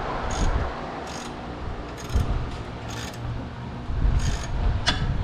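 Ratchet wrench clicking in short repeated strokes, about one a second, as a bolt is turned.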